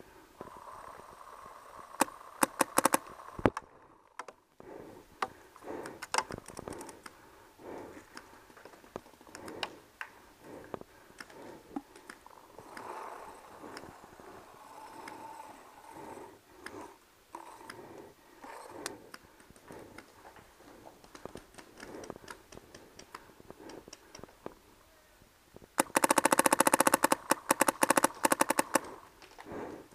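Empire Axe electronic paintball marker fired in a rapid string of shots lasting about three seconds near the end, after a short volley about two seconds in. Other paintball markers pop sporadically across the field throughout.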